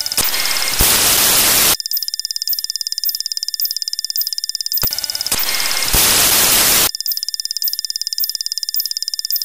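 Loud looping electronic sound effect: a rapid, high-pitched bell-like ringing with steady whistling tones, broken twice by a burst of harsh static hiss about a second long. The loop repeats about every five seconds.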